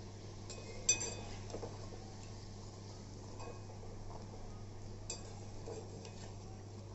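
A perforated metal skimmer clinking against a metal kadhai while turning and lifting a fried bhatura from the oil: a sharp ringing clink about a second in, another about five seconds in, and a few softer taps, over a low steady hum.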